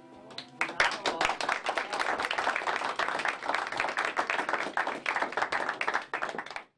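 Small audience applauding by hand, starting about half a second in as the last ringing note of the music dies away. The clapping stays steady, then cuts off suddenly near the end.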